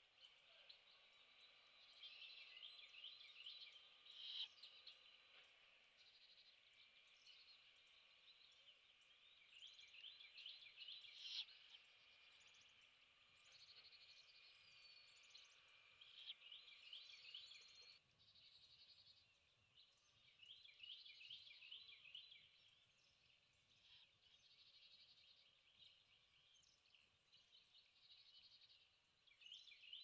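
A small songbird singing faintly, a short trilled phrase of rapid notes lasting about two seconds, repeated five times with pauses of several seconds between.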